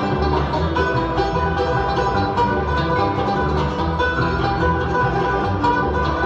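Bluegrass music with a banjo picking steadily.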